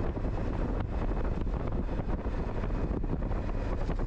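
Steady wind rush over a helmet-mounted action camera on a moving motorcycle, with the low drone of the bike and road underneath.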